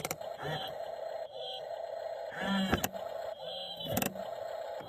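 RC excavator's small electric motors whining over a steady hum, the pitch sliding up and down as it works. Short bursts of sharp clicking come right at the start and about four seconds in.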